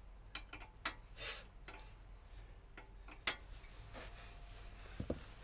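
Scattered, irregular light clicks and taps of metal tools and parts being handled, with one sharper click a little over three seconds in and a short low knock near the end.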